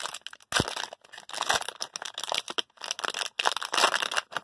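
Plastic wrapper of a baseball card pack crinkling and tearing as it is pulled open by hand, in quick irregular rustles with short pauses.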